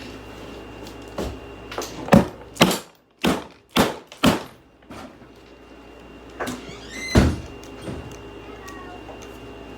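Hammer blows on a hair dryer's plastic housing: a quick run of hard knocks about half a second apart, then a short pause and three more.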